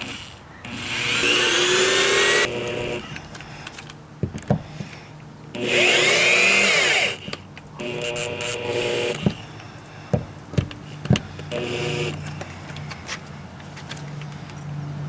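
Cordless drill-driver driving screws to fasten a lock's mounting plate: two long runs of the motor with its pitch rising and falling, then a few shorter bursts and sharp clicks.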